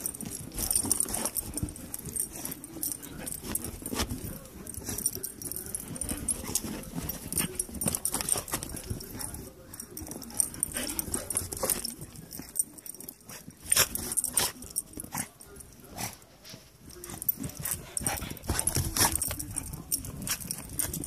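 A small dog rooting and digging in deep snow, giving a busy, irregular run of crunches and scuffs, with a few sharper, louder ones about two-thirds of the way through.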